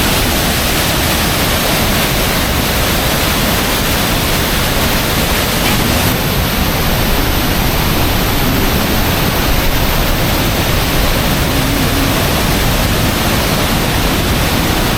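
Loud, steady rush of water pouring over a waterfall.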